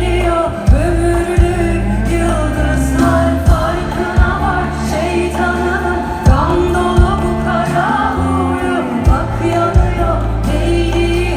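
Live pop band playing with a singer: a sung melody over a heavy sustained bass and regular drum hits.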